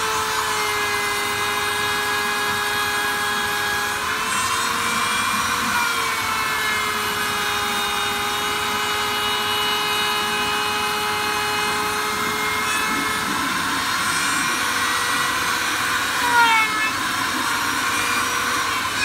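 Handheld power tool cutting an MDF board, its motor a steady high whine that sags slightly in pitch now and then, with the hiss of a dust extractor drawing through its hose. There is a brief louder moment near the end as the pitch dips.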